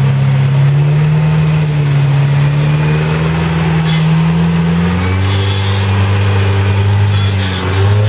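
Rock crawler buggy's engine running under load as it climbs a rock ledge, holding a steady pitch and then settling lower about five seconds in, with a brief dip in revs near the end before it picks up again.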